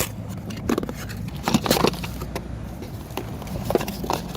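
Scattered handling sounds: a few short knocks and rustles, clustered about a second and a half in and again near the end, over a steady low hum.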